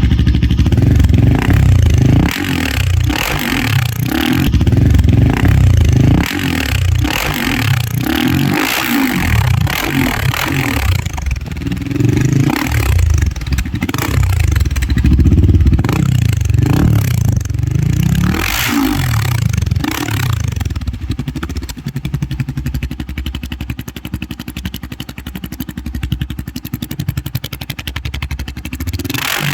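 Royal Enfield Himalayan 450's single-cylinder engine running through an AEW aftermarket exhaust with its dB killer fitted, revved in repeated throttle blips. About twenty seconds in it settles to a steady, even idle.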